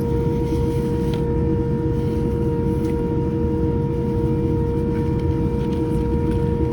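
Steady cabin noise inside a Boeing 787-10: a low rumble from the engines and air system with a constant, even hum of a few steady tones.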